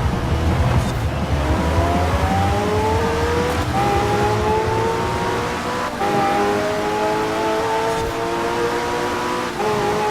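Car engine under steady acceleration, its pitch climbing slowly and breaking with a sudden step a few times, like gear changes.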